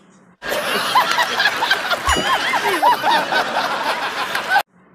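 Loud laughter from several people at once, cutting in sharply about half a second in and stopping abruptly near the end.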